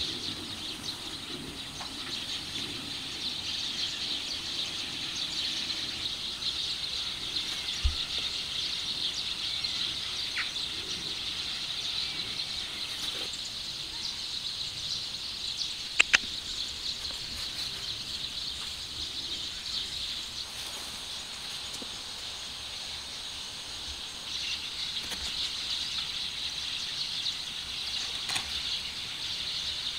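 Outdoor ambience: a steady high-pitched drone throughout, with a low thump about eight seconds in and a sharp double click about sixteen seconds in.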